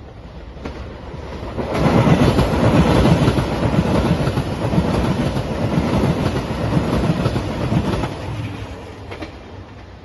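JR Shikoku 2700 series diesel limited express train passing close by: the noise of its engines and wheels on the rails swells suddenly a couple of seconds in, stays loud while the cars go past, and fades away near the end.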